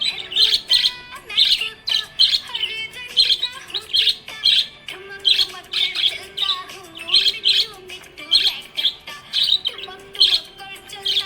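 Small pet parrots giving sharp, high chirps over and over, a little more than once a second. Beneath them runs a lower drawn-out tone that steps up and down in pitch.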